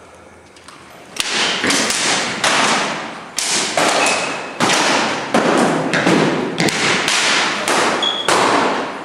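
Synthetic training longswords clashing in rapid sparring exchanges: a quick series of sharp knocks, about two a second, starting about a second in, echoing in a large hall, a couple of strikes with a brief ring.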